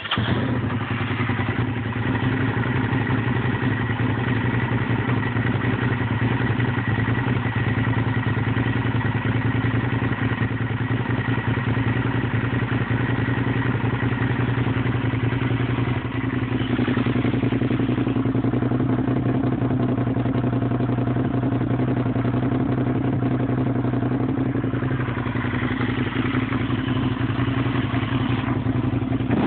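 Suzuki SV650's V-twin engine comes in suddenly and then idles steadily.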